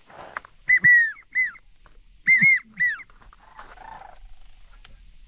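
Wigeon whistle calls: two quick series of three high whistled notes, each note rising and then falling.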